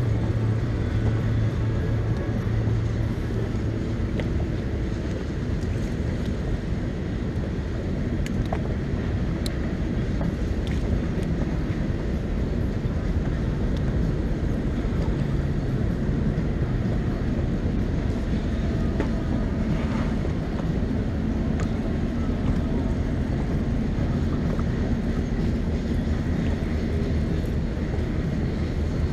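Boat motor running steadily with a low hum, under a wash of wind and water noise.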